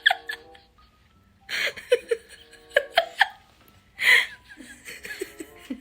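A person laughing in short, breathy bursts, with pitched vocal sounds between them.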